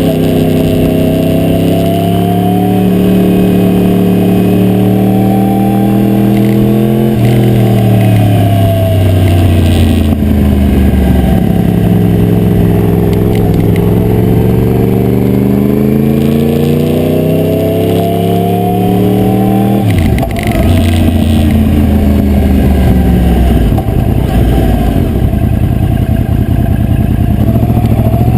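2009 Yamaha R1's crossplane inline-four engine under way. Its pitch climbs under throttle and drops sharply at upshifts about seven seconds in and again near twenty seconds, sagging and climbing again in between. Heard with the GoPro Hero2 rattling in its adhesive mount.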